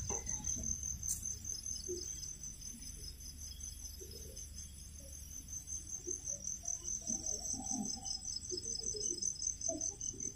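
Night insects chirping in a steady, rapid high-pitched pulse, about five pulses a second.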